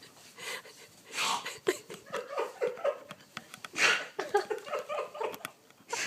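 People's voices making short non-word sounds, with bursts of breathy laughter.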